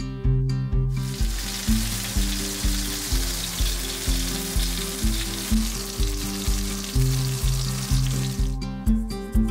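Stuffed bell pepper rings sizzling in hot avocado oil in a frying pan. The sizzle starts about a second in and cuts off shortly before the end. Background music with a steady beat runs underneath.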